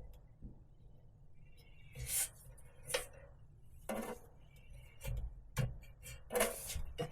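A series of about seven short knocks and clinks at irregular intervals, some followed by a brief ring.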